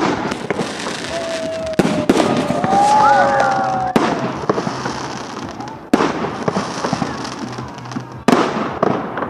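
Fireworks going off: a string of sharp bangs a second or two apart over continuous crackling. Wavering, whistle-like tones rise and fall between the first few bangs.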